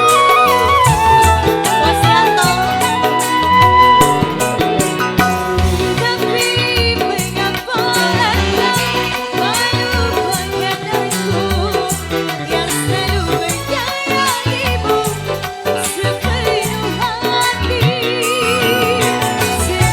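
Band music with a wavering, vibrato-laden melody line, plausibly a female vocal, over a steady drum beat.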